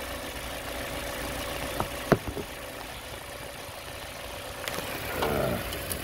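2009 Toyota 1.8-litre four-cylinder engine idling steadily, heard from underneath. A few sharp knocks come about two seconds in.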